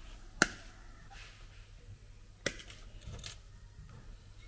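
Side cutters snipping thin metal rods, with two sharp snaps about two seconds apart.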